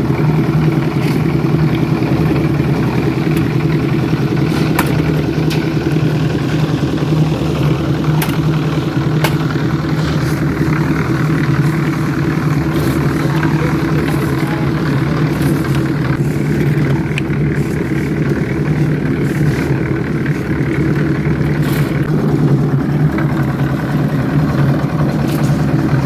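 An engine running steadily at a constant speed, with scattered sharp clanks over it.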